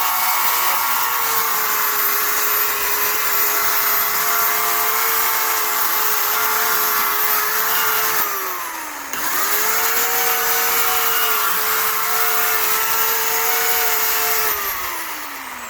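Oregon CS1400 15-amp corded electric chainsaw running at full speed with a steady motor whine. It winds down about eight seconds in, spins straight back up, and winds down again near the end as the trigger is let off.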